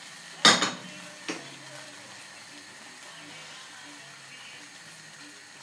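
A frying pan set down onto the gas hob's grate with a sharp clank about half a second in and a lighter knock shortly after, then the faint steady sizzle of a pancake frying.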